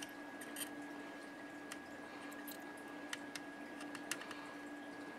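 Quiet hand soldering of a push button onto a circuit board: faint, scattered ticks and soft clicks from handling the button and soldering iron, over a steady low hum.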